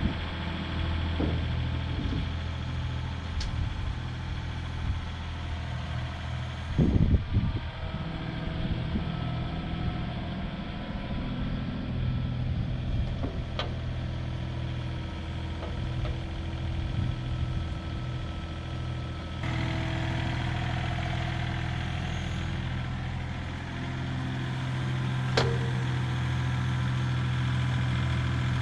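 Engine running steadily at idle, with a loud clunk about seven seconds in and a couple of sharp clicks later; the engine note gets a little louder near the end.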